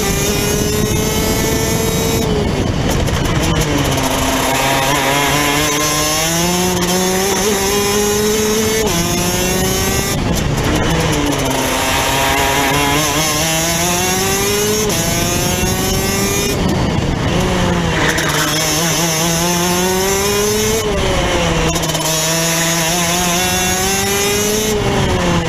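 Rotax DD2 kart's 125 cc two-stroke engine at racing speed, heard onboard over wind rush: the revs drop sharply into each corner and climb steadily out of it, four times over.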